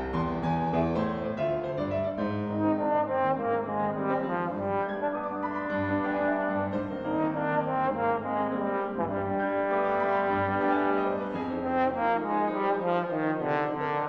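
Trombone playing a melody of held notes, accompanied by a grand piano.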